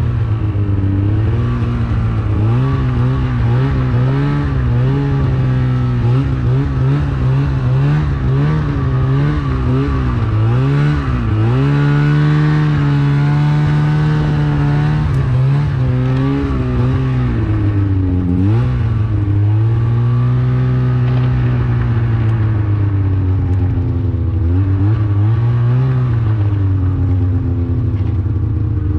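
Widetrack snowmobile engine running under constantly changing throttle, its pitch rising and falling again and again as the sled works through deep fresh snow. There is a sharp drop and climb in pitch about 18 seconds in.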